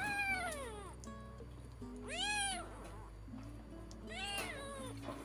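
Small black kitten meowing three times while being bottle-fed, each cry rising then falling in pitch, over steady background music.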